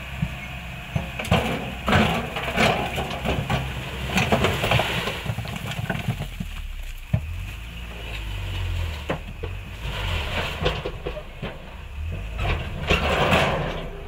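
Tipper truck dumping a load of bricks: the bricks clatter and tumble out of the raised body in several bursts, over the truck's running engine.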